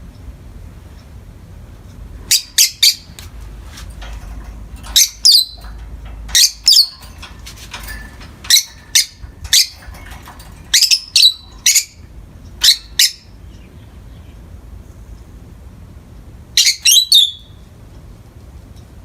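Peach-faced lovebirds giving loud, shrill chirps in quick clusters of two or three, every second or two. After a pause of a few seconds comes a last burst near the end.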